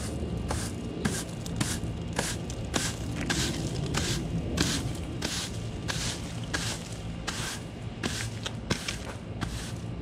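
A rake scraping through pine needles on grass in repeated strokes, about two a second.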